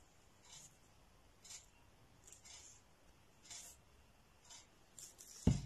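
A glass spice shaker shaken over raw salmon fillets: about five faint, brief shakes roughly a second apart, then a single loud knock near the end.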